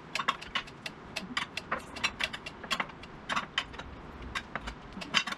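Quick, irregular clicks and taps of kitchen work: a knife chopping cilantro on a cutting board, with a metal spoon knocking against glass dishes and bowls.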